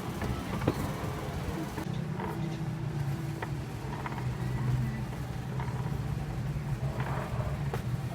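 Vespa 150 3V i.e. scooter's single-cylinder four-stroke engine running steadily, with no bearing noise from the gearbox now that the worn bearing has been replaced.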